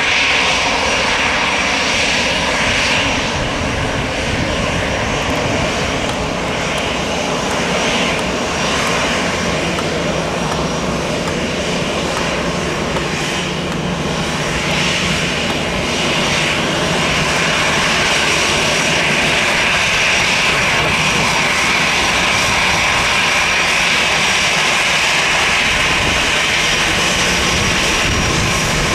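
Airbus A319 jet engines running loud and steady, a dense rushing noise with a high whine, growing a little louder about halfway through.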